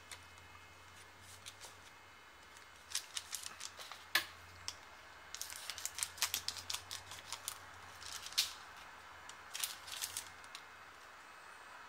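Hands handling trading-card packaging: quick, crisp crinkles and clicks of plastic wrapping and card stock, coming in clusters from about three seconds in until shortly before the end.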